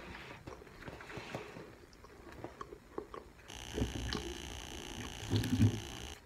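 Faint eating and handling noises: scattered small clicks, then a steady hiss from about three and a half seconds in, with two brief low hums, that cuts off suddenly just before the end.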